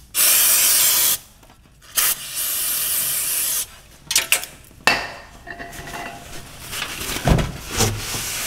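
Aerosol brake cleaner sprayed onto a car's oil pan in two hissing bursts, the first about a second long and the second about a second and a half, followed by a few knocks and rustling.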